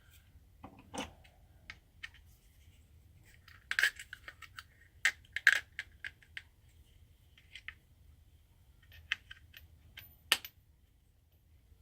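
Sockets and twist-lock clips on a socket rail being handled: scattered sharp clicks and clacks, loudest in clusters about four and five seconds in and once more near ten seconds.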